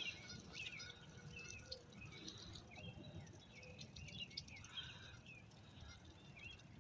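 Faint outdoor birdsong: scattered short chirps and calls from several birds, over a low background rumble.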